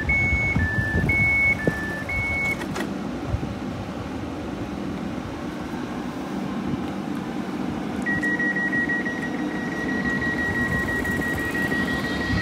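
Door warning signals of a suburban electric multiple unit. In the first two and a half seconds a two-tone chime alternates high and low a few times. From about eight seconds in a single steady beep is held for about five seconds as the doors close. Under both runs the train's steady hum.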